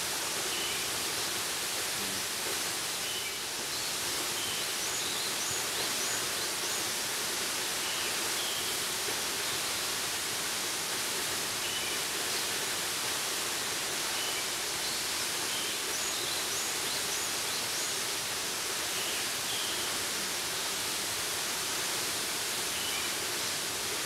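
Steady rushing roar of a tall waterfall falling onto rock, an even unbroken noise, with a few faint high chirps now and then.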